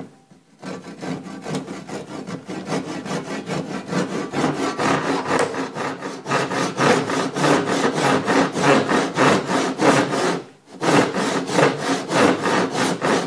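Handsaw (fogsvans) sawing into the end of a wooden blank with quick, even back-and-forth strokes, cutting a shallow kerf along a marked diagonal. The strokes grow louder after a few seconds, with a brief pause about ten and a half seconds in.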